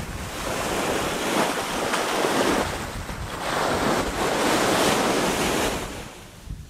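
Surf breaking on the shore, with wind buffeting the microphone. The rush swells and ebbs a couple of times and falls away near the end.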